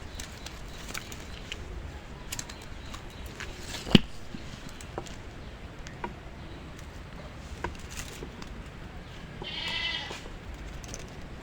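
A wavering animal call about a second long near the end, over a steady noisy background with scattered clicks and one sharp knock about four seconds in.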